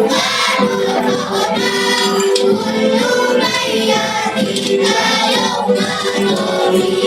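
A children's choir singing, with steady held notes.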